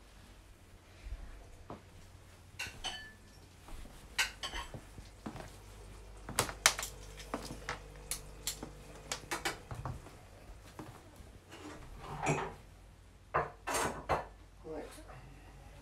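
Plates and cutlery clinking and knocking against each other, a run of irregular sharp clinks with a few louder ones, as food is served up.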